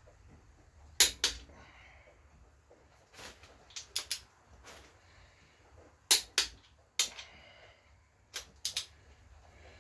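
Click-type torque wrench snapping over as the crankshaft main cap bolts of a GM 4.3 V6 are brought to torque: sharp clicks, mostly in pairs, every second or two, with lighter ratchet ticking between them.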